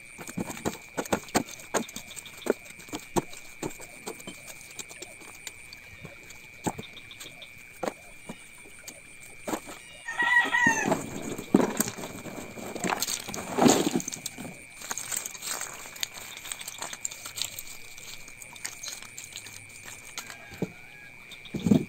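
A rooster crowing once, about ten seconds in, over scattered clicks and knocks and a faint steady high tone. Near the end, dry coconut shell pieces clatter as a hand gathers them.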